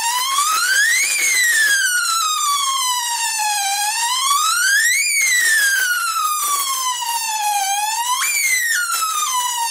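High-voltage arc from a single-MOSFET flyback transformer driver, modulated by a sound-effect generator so that the arc itself sings a siren-like wail. The pitch climbs quickly and sinks slowly, repeating about every four seconds, with a sudden jump up near the end.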